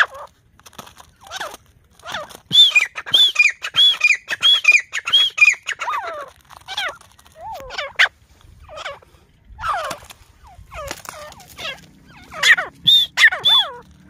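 Grey francolins calling: a run of repeated high, arched notes, about one and a half a second, then scattered lower falling calls and another burst of high notes near the end.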